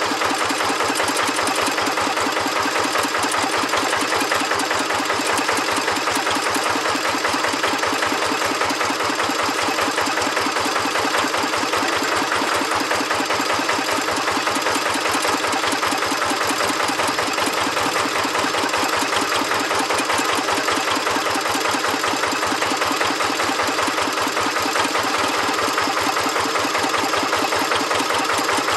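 Kubota RD 85 DI-2S single-cylinder diesel engine of a Quick G1000 Boxer hand tractor idling steadily, a fast, even chugging beat.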